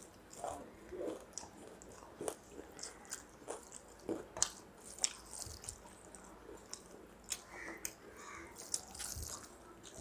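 A person eating close to the microphone: irregular chewing and biting, with sharp wet mouth clicks and now and then a crunch.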